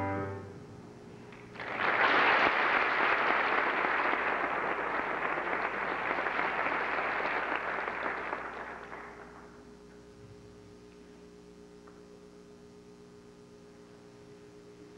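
Audience applauding for about seven seconds, starting a couple of seconds in and dying away. Just before it, the last chord of the piano accompaniment fades out, and a faint steady hum remains once the clapping stops.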